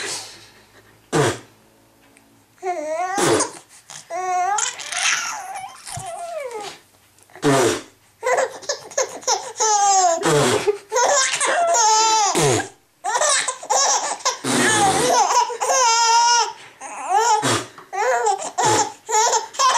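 A young baby laughing in repeated wavering bursts, set off by adults' short, sharp mock sneezes.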